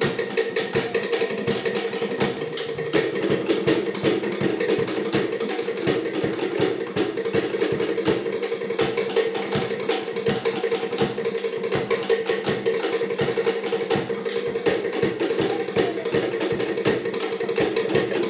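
Cook Islands drum ensemble playing a fast, driving dance rhythm: sharp wooden slit-drum strikes in quick, even succession over skin drums, with no break.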